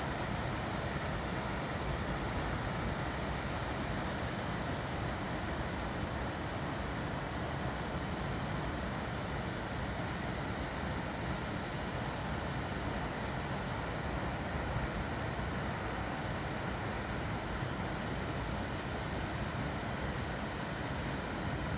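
Water rushing at a river lock on the Neckar: a steady, even rush of noise with no breaks or changes.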